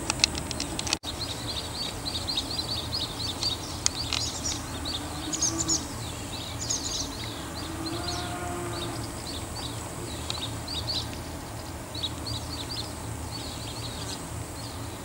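Small birds chirping, many short high notes in quick irregular runs, over a steady low outdoor rumble. The sound cuts out briefly about a second in.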